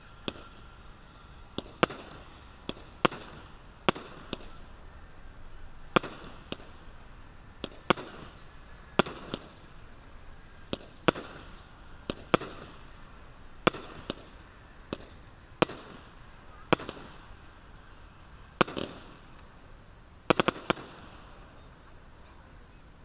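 'Open Grave' 200-gram aerial repeater cake firing, with a sharp report about once a second from its shots launching and breaking, some followed by a brief crackle. The shots stop a little before the end.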